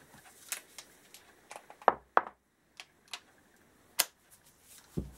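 Irregular metallic clicks and knocks as a motorcycle brake caliper and a socket wrench are handled on a workbench, with the loudest pair of knocks about two seconds in and a sharp click at about four seconds.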